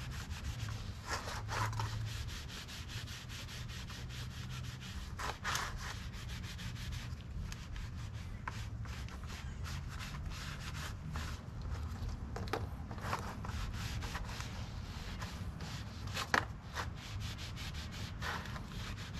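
Hand cleaning of a gearbox part: a rag and gloved hands rubbing and scraping at it, with scattered light clicks and knocks.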